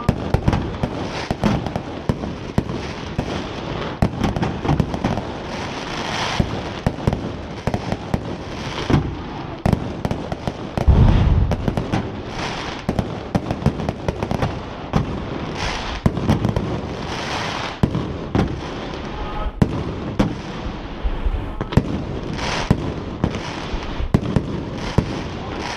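Aerial fireworks display: a continuous run of shells bursting with bangs and crackling. The biggest, deepest boom comes about eleven seconds in.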